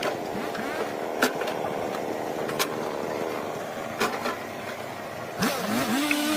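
Engine-driven machine running steadily, with a sharp knock about every second and a half and a wavering whine near the end.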